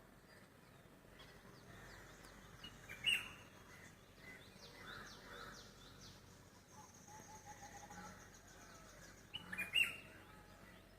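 Several wild birds singing and calling: runs of quick, high down-slurred notes and a high trill, over faint background noise. Two louder, sharp calls come about three seconds in and again near the end.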